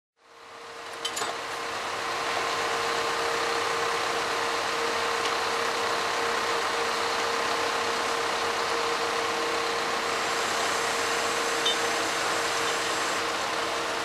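A truck's diesel engine running steadily while its loader crane works, with a steady whine over the engine noise. Two short clicks, about a second in and near the end.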